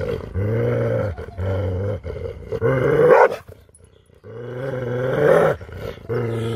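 Siberian husky vocalizing in a run of long, low, drawn-out calls, four or five in a row. One rises in pitch and gets louder about three seconds in, followed by a short pause.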